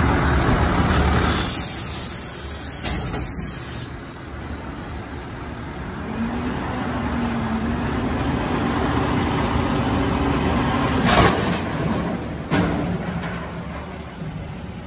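Front-loader garbage truck's engine running faster to power the hydraulic arms as they lift a steel dumpster over the cab and tip it. Two sharp bangs come near the end as the tipping bin empties into the hopper.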